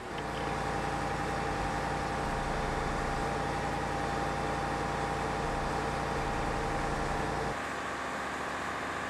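Heavy machinery engines running steadily, a hum of several held tones, switching abruptly about seven and a half seconds in to a quieter, rougher hum.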